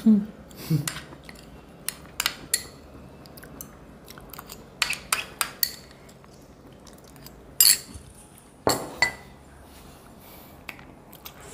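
Metal spoon clinking and scraping against a small glass bowl and plates: a scatter of short, sharp clinks, with a quick run of them near the middle.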